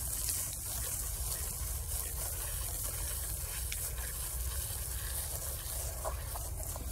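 A hand rubbing the spent florets off a ripe sunflower head over its seeds: a steady rustling.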